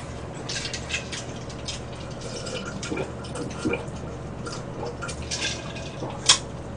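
Eating and drinking sounds: chopsticks clicking against bowls and noodles being eaten, with water gulped straight from a plastic pitcher in the second half. There is a sharp click near the end.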